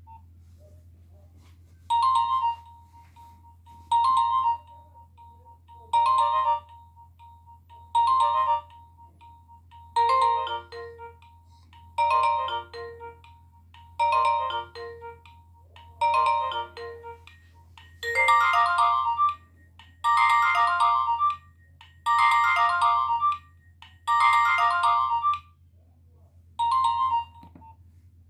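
Nokia 1600 mobile phone playing one of its ringtones: a short melodic phrase that repeats about every two seconds. Later in the tone the phrases become longer and fuller, and it ends on a short phrase.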